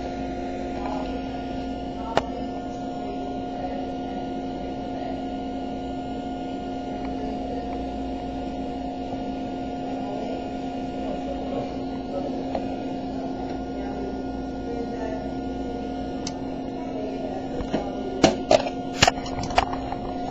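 A steady electrical hum in a small room. Near the end come several sharp knocks and clatters in quick succession.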